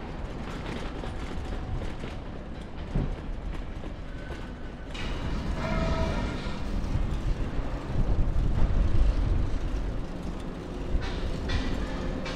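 Vehicle and road noise, a steady low rumble, with a brief whine of several tones about six seconds in and the rumble swelling around eight to nine seconds.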